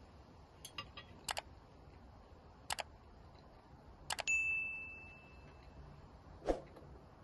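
Short paired mouse-click sound effects, then a double click and a bright bell ding that rings and fades over about a second and a half, from an animated subscribe-and-notification-bell overlay. A duller knock follows near the end.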